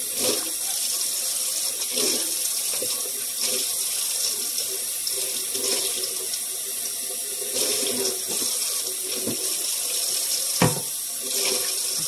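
Kitchen tap running steadily into the sink, with a few light clatters and one sharp knock near the end.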